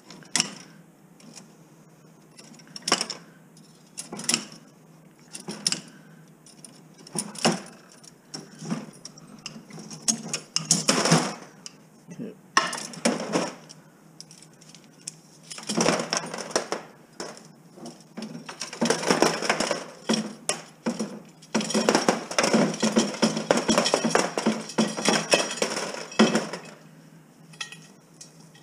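Bolt cutters snapping through bicycle wheel spokes, a sharp snap every second or so for the first ten seconds. After that comes a long spell of cut metal spokes rattling and clinking against the wheel rim as it is handled.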